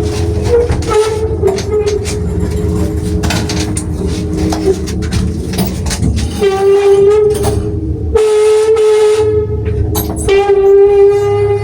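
A 1981 Samarkand LP-320 passenger lift car travelling down with a loud, harsh squeal. The squeal is a high tone that runs almost without break and swells into stronger stretches in the second half, over a low running rumble with scattered clicks and knocks.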